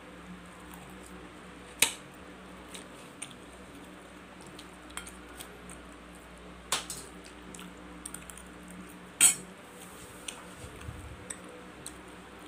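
Metal knife and fork clinking and scraping on a plate while cutting fried meatballs: three sharp clinks, about 2, 7 and 9 seconds in, with lighter ticks between, over a faint steady hum.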